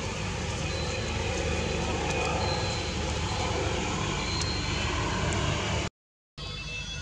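Steady low rumble of outdoor background noise, with a few short high tones, cutting out to silence for about half a second near the end.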